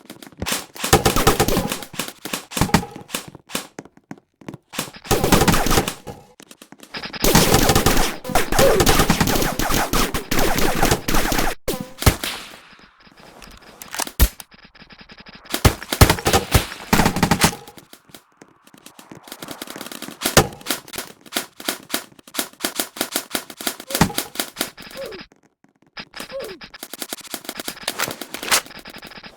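Airsoft guns firing full-auto in repeated bursts of rapid shots, several within a few seconds of each other. The longest burst lasts about four seconds.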